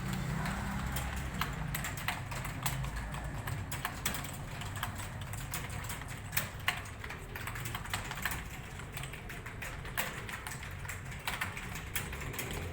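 Fast typing during a typing test: a dense, irregular patter of key clicks with no pauses, over a low steady hum.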